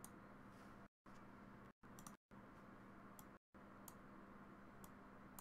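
Faint, scattered clicks of a computer mouse, about five in all, over near-silent room tone with a low steady hum. The background drops out to dead silence for moments a few times.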